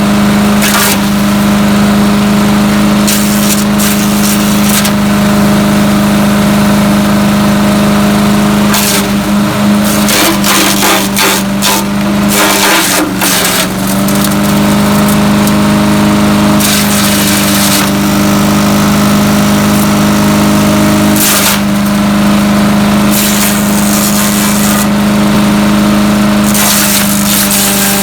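Landworks 7 hp wood chipper's gas engine running steadily at speed while wood is fed through, with repeated bursts of crunching and splintering. About ten seconds in the engine sags under load for a few seconds amid rapid cracking, then picks back up.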